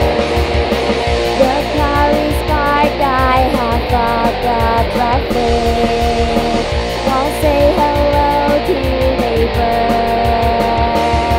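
Background rock music: guitar over a steady drum and cymbal beat.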